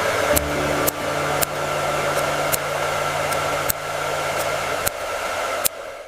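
Electric hair dryer blowing steadily, a rushing whoosh with a faint whine and low hum, broken by about ten sharp clicks, then cutting off suddenly at the end.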